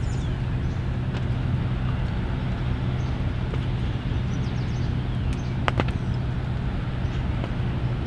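Steady low hum and rumble of outdoor background noise, with a couple of sharp clicks about six seconds in.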